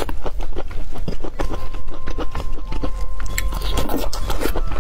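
Close-miked chewing of sticky, sauce-glazed skewered meat and green peppers: a rapid run of wet mouth clicks and smacks.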